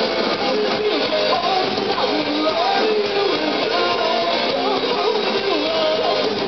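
Punk band playing live, with electric guitars driving the song and a melody line bending over the top.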